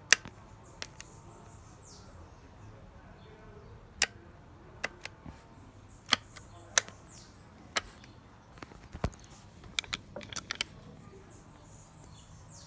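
Irregular sharp metallic clicks from hand-working the action of an IMBEL .22 LR rifle: the bolt, a cartridge at the extractor, and the magazine, with a quick run of clicks about ten seconds in. Faint bird chirps behind.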